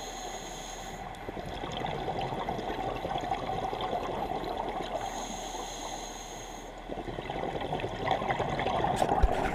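Scuba divers' regulator exhaust bubbling underwater. It eases off briefly twice and grows louder toward the end, with a few sharp clicks near the end.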